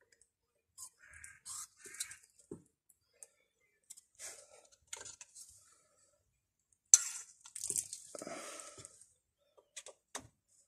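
Small handling noises of hands working on a brake caliper and syringe: scattered light clicks, taps and rustles, with a sharp click about seven seconds in followed by about two seconds of hissing rustle.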